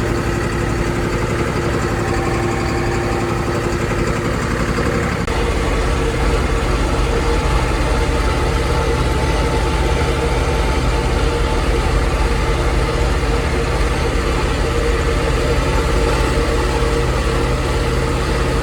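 Vehicle engine running steadily while driving, its note changing about five seconds in.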